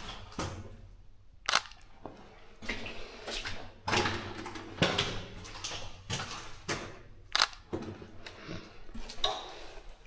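Footsteps on a hard, gritty floor: irregular sharp steps and scuffs.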